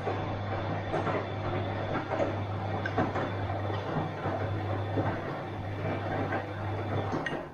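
Bosch washing machine running a wash cycle: a steady motor hum under the swish of tumbling laundry and water, with irregular soft knocks. It cuts off abruptly near the end as the drum stops.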